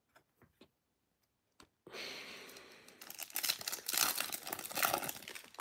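Foil wrapper of a Panini Prizm football card pack being torn open and crinkled, starting about two seconds in after a few faint ticks of cards being handled. The crinkling comes in irregular, uneven bursts.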